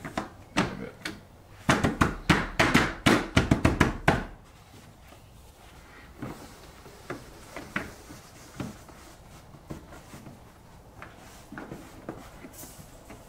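Sandpaper rubbing over dried body filler on a car fender by hand, in short scratchy strokes. A quick run of about ten strokes comes about two seconds in, then occasional single strokes.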